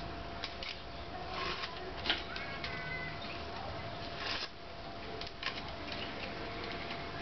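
Masking tape and paper being peeled and scraped off a painted pinball backbox, in short scratchy tearing strokes. A bird chirps briefly a little over two seconds in.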